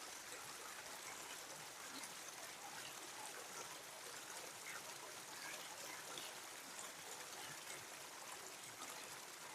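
A mountain creek running over rocks: faint, steady babbling water with small splashes scattered through it.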